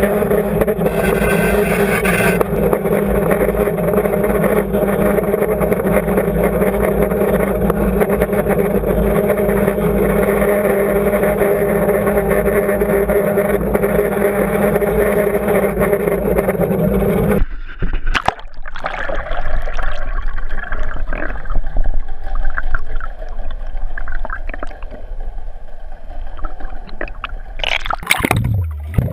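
Trolling boat's engine and propeller heard underwater: a steady, even drone. About two-thirds of the way through it cuts off abruptly, giving way to irregular gurgling and splashing water at the surface.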